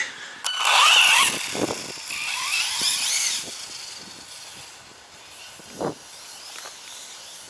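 Arrma Senton RC truck's electric motor whining up and down in pitch in two hard bursts of acceleration across wet grass, then fading as it drives away. A brief knock comes near the end.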